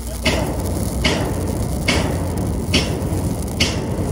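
Electric welding arc crackling steadily on steel, with five sharper surges a little under a second apart.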